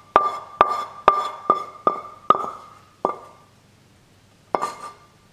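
Frying pan being tapped with a utensil to knock scrambled egg out onto a plate: sharp, ringing metallic knocks about twice a second, then one more knock and a quick pair near the end.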